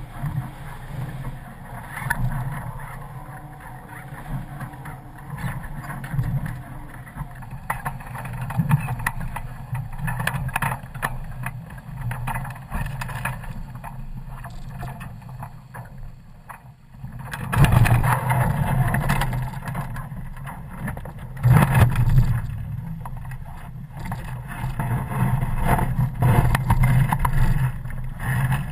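Wind buffeting a camera mounted high on a sailing Shadow catamaran's rig, with the rush of the hulls through the water. A steady noise that surges louder a little past halfway and again a few seconds later.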